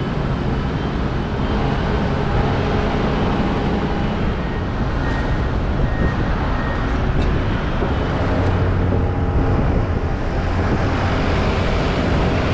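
Airport apron noise: a loud, steady rumble of aircraft and ground vehicles, with a faint high whine for a couple of seconds around the middle.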